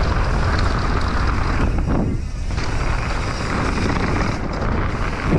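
Wind rushing over the camera and tyres rolling over a dry dirt trail as a mountain bike descends at speed. The noise briefly eases about two seconds in.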